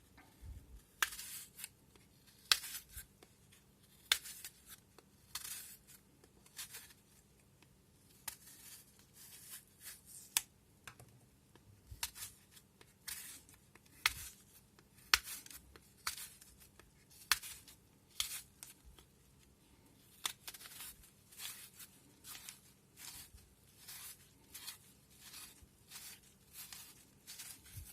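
Knife slicing fresh apples on a cutting board: a string of crisp cuts and light knocks, roughly one a second.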